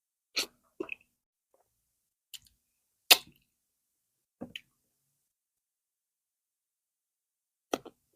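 Close-miked eating sounds as plantain fufu and stew are eaten: six short, sharp mouth noises with silence between them, the loudest about three seconds in.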